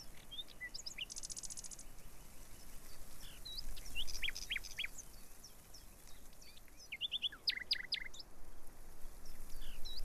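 Birds chirping: a quick trill and many short, high whistled notes that sweep down in pitch, in small clusters, over a faint steady hiss.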